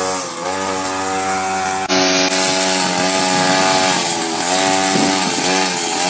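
Petrol string trimmer engine running at high revs, its pitch dipping and picking up again a few times as the throttle eases and reopens.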